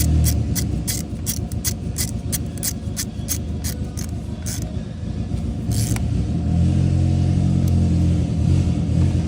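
A hand ratchet clicking about three times a second as nuts on the alternator's power cable are tightened. The clicking stops about four and a half seconds in, with one more click a second later, over a steady low rumble that grows louder in the second half.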